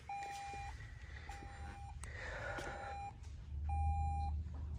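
Toyota Tundra's cabin warning chime beeping steadily, one even half-second tone a little more than once a second, four beeps. It sounds with the truck left in accessory mode and the driver's door open.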